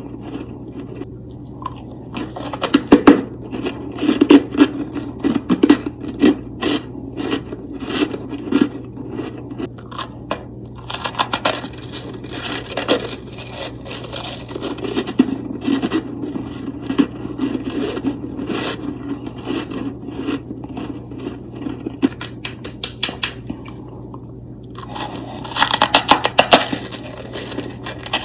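Powdery freezer frost being scraped up and crunched: a long irregular run of short crunchy scrapes, thickening into a dense burst of crunching near the end, over a steady low hum.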